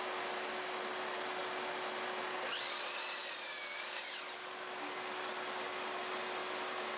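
A sliding miter saw making an angled cut through a length of 2x3 framing lumber; the cut runs from about two and a half to four seconds in, with a high whine that dips and rises again. Under it is a steady hiss with a low hum.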